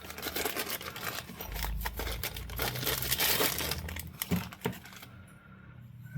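Packaging crinkling and rustling as it is handled, a dense irregular crackle that dies away about five seconds in.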